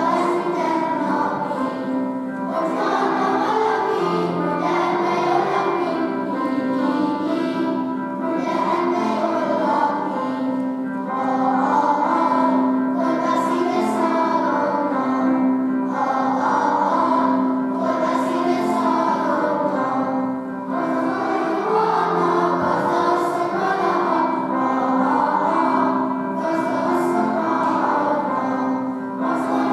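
Children's choir singing, in phrases of a few seconds with short breaks between them.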